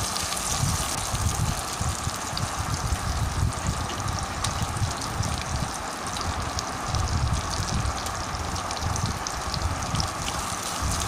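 Onions and green chillies frying in hot oil in a pressure-cooker pan and being stirred with a wooden spatula: a steady sizzling hiss with many small crackles, over an uneven low rumble.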